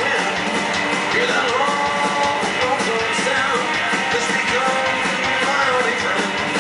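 Live rockabilly band music played loud, with electric guitar, upright bass and drums.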